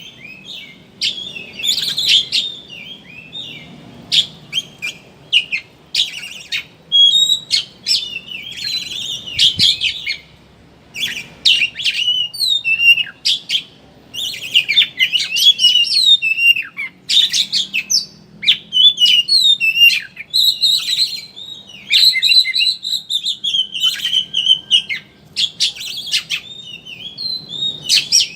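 Oriental magpie-robin (kacer) singing a fast, chattering 'ngeriwik' song of varied whistles, quick up-and-down glides and sharp clicks, in rapid phrases with brief pauses.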